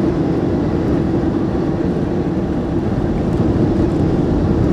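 Airbus A340 in its landing rollout, heard from the cockpit: a loud, steady rumble of the engines in reverse thrust together with the wheels rolling on the runway, with a steady hum running through it.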